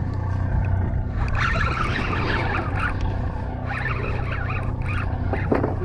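Party boat's engine running with a steady low hum.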